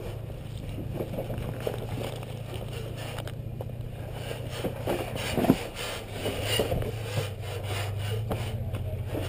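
Toyota FJ Cruiser's 4.0-litre V6 running at low revs as it crawls over rock, with scattered crunching and scraping of tyres on rock and gravel.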